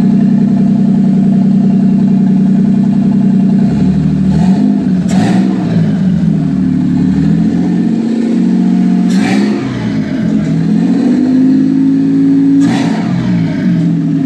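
Toyota 2JZ-GTE twin-turbo inline-six running on a test stand: it idles steadily, then from about four seconds in it is revved up and down several times.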